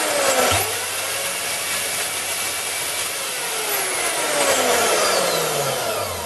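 VEVOR 1100-watt variable-speed portable band saw running with no load, a test run of its newly fitted blade: a steady motor whine with blade hiss. Its pitch rises sharply about half a second in, then falls slowly, and the sound fades near the end.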